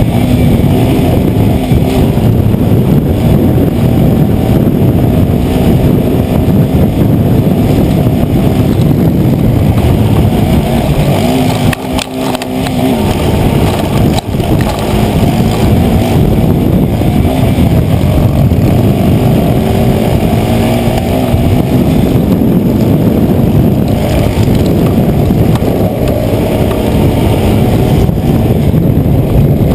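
Racing quad's engine running loud and hard, heard up close from a camera mounted on the machine. About twelve seconds in the engine sound dips briefly, with a sharp knock a couple of seconds later.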